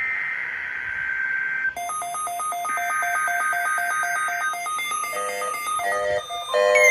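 Emergency Alert System digital header tones: harsh, screechy data bursts. About two seconds in, a fast warbling pattern of alternating electronic beeps joins them, and several stepped electronic tones follow near the end.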